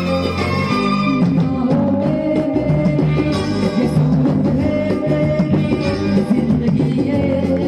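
Backing track of a Hindi film song with a man singing along live into a handheld microphone.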